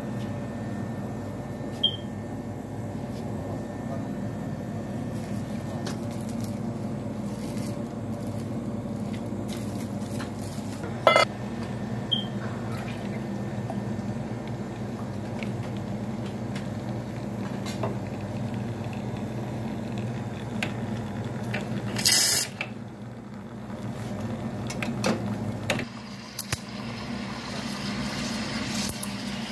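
Espresso machine running with a steady low hum while shots pour, broken by a few sharp knocks and clatters, two of them louder, about a third and three quarters of the way in. Near the end the steam wand starts hissing into a pitcher of milk.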